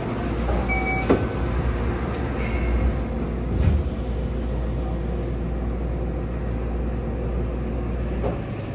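Sliding doors of a Yokohama Municipal Subway 3000R car closing at a station stop: short beeps and a sharp click about a second in, then the doors thud shut a little under four seconds in. Under it runs the standing car's steady low hum.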